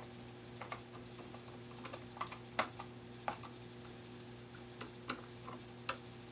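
Screwdriver working the terminal screws of a light-fixture base, making small irregular metallic clicks and ticks as the tip seats and turns on the screw heads. The wires are looped around the screws.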